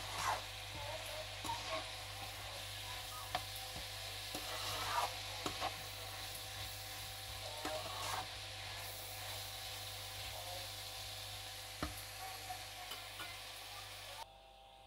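Mushrooms sizzling in a curry base in a nonstick frying pan while a spatula stirs them, with scattered scrapes and light knocks against the pan. Near the end the sizzle drops away suddenly as a glass lid goes on the pan.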